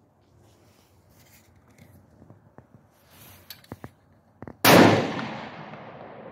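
A single shot from a Tikka T3 bolt-action rifle in .223, about four and a half seconds in, with a long reverberating tail. A few faint clicks come before it.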